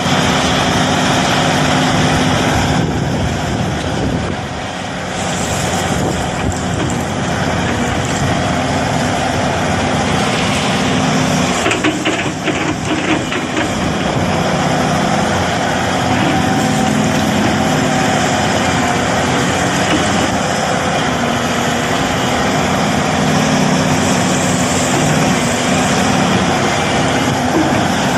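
Excavator's diesel engine running steadily, its note strengthening and easing in stretches as the machine works, with a brief clatter of knocks about twelve seconds in.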